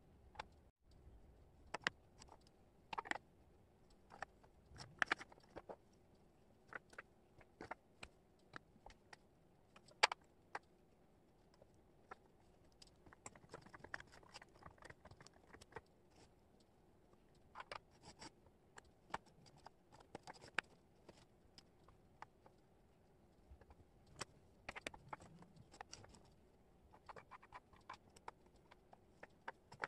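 Wooden jigsaw puzzle pieces being picked up, shuffled and set down on a cork board: faint, irregular clicks and light scrapes, with a sharper tap about ten seconds in.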